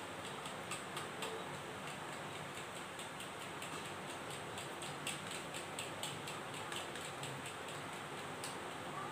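Faint, irregular sticky clicks, a few a second, of soft yeast dough being pinched and pressed between the fingers to seal a bun around beef mince filling, over a steady hiss.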